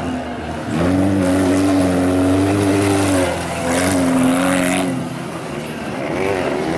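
Stock car engine running hard at high revs on a dirt track, its pitch wavering slightly. The throttle is eased briefly about half a second in and about three seconds in, and for longer near five seconds, then it picks back up near the end.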